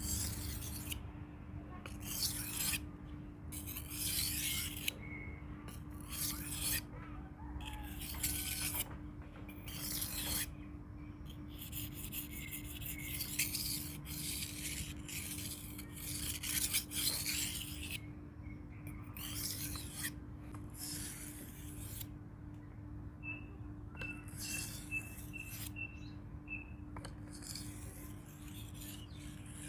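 Knife blade of leaf-spring steel stroked back and forth on a whetstone, a gritty scraping stroke repeating about once a second, over a steady low hum.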